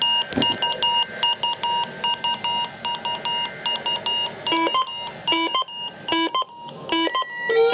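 Several NOAA weather radio receivers sounding their alert alarms at once, set off by the weekly warning alarm tone test. Rapid high-pitched beeping runs throughout, a slower beep alternating between a low and a high pitch joins about four and a half seconds in, and near the end a siren-like tone begins rising in pitch.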